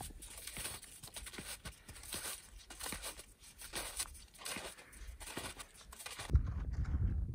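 Touring skis with climbing skins sliding uphill over crusty snow, an irregular run of crunching and scraping strides. About six seconds in it switches to a louder low rumble.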